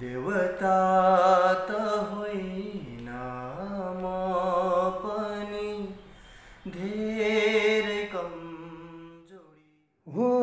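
A man singing unaccompanied, holding long notes with vibrato and sliding between them. The singing stops about nine and a half seconds in, and after a brief silence another man's voice starts singing near the end.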